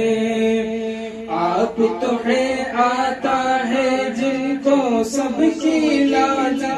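A man singing a naat, an Urdu devotional song in praise of the Prophet, into a microphone without instruments. A held note gives way about a second in to a winding melodic line.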